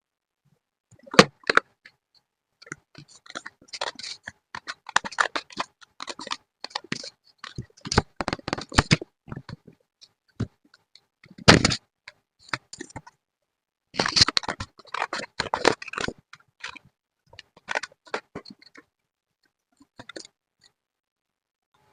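Paper and craft materials being handled for a scrapbook page: irregular bursts of short clicks and rustling with brief pauses, the loudest about a second in and again about halfway through.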